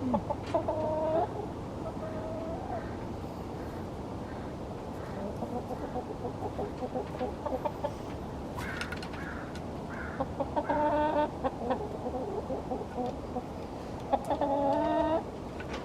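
Chickens clucking, with a hen giving three longer drawn-out calls: near the start, about two-thirds of the way through, and near the end.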